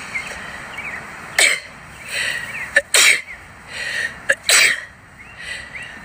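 A woman sneezing about three times in quick succession, each sneeze with a sharp breath in before it. It is a sun-triggered (photic) sneeze fit, set off by looking into the sun.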